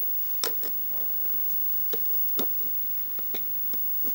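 A metal crochet hook clicking and tapping against the plastic pegs and rubber bands of a loom as the bands are lifted over. About seven short, light clicks come at irregular intervals.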